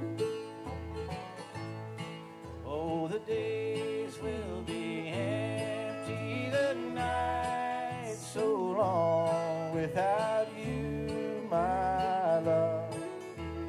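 A bluegrass band playing live: a woman singing the melody over acoustic guitar, mandolin and an upright bass plucking a steady beat.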